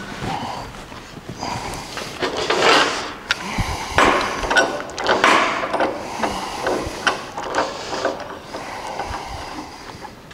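Hand work on a steel truck frame rail: irregular scraping and rubbing with scattered clicks and knocks of metal.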